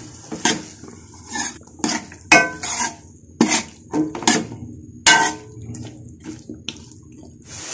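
Metal spoon scraping and knocking against a metal karahi as chunks of potato and chopped radish pods are stirred into masala: a string of irregular clanks and scrapes, growing fainter after about five seconds.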